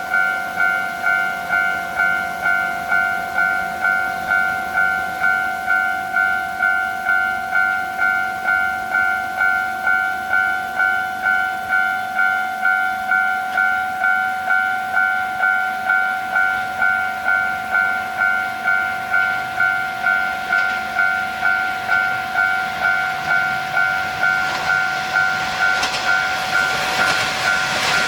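Japanese level-crossing warning bell ringing, an evenly repeating two-tone electronic ding at just under two strikes a second. From about two-thirds of the way through, a pair of KiHa 47 diesel railcars is heard approaching, their rumble growing louder toward the end.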